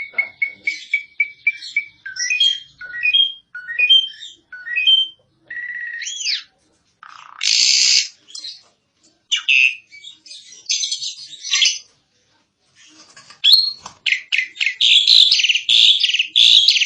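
Asian pied starling (jalak suren) singing a varied song: a quick series of repeated short whistles, then rising and falling whistled phrases broken by harsh, grating notes, and after a brief pause a dense stretch of rapid chattering near the end.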